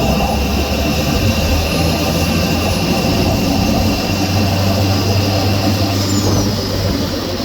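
Engine bay of a 2016 Renault Megane 1.2 TCe turbocharged petrol engine pulling under throttle, with a steady low droning noise over the engine that eases near the end. This is the odd noise the owner hears only with the accelerator pressed, and it stops when the foot comes off.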